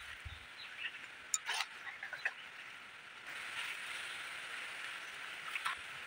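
Outdoor ambience: a steady high-pitched hiss that grows louder about three seconds in, with a few light clicks and taps as thin sticks are handled and pushed into the soil.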